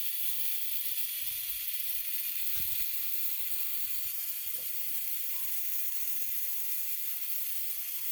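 Animated Christmas village popcorn factory running without its music, its motorized mechanism giving off a steady high hiss that cannot be switched off, with a few soft knocks.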